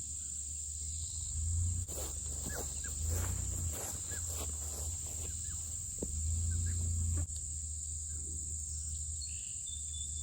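A steady high-pitched chorus of insects runs throughout, over a low rumble. Scattered rustles and taps come mostly in the middle stretch.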